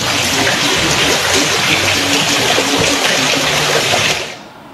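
Water rushing steadily through a flooded street, where residents blame the flooding on blocked storm drains; it cuts off abruptly a little before the end.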